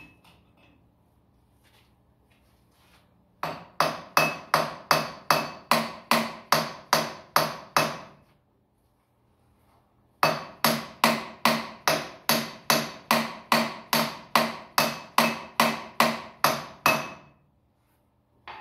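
Hammer blows on metal at the engine of a Ford 7610 tractor, about three a second with a short metallic ring after each strike. They come in two long runs, the first of about five seconds and the second of about seven, with a pause of two seconds between.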